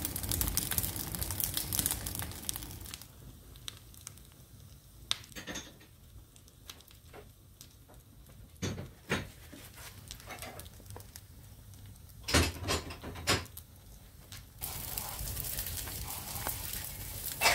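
Wood fire burning in a fireplace: a crackling hiss, denser at the start and the end, with a handful of sharp pops in the quieter middle, the loudest three close together near the end.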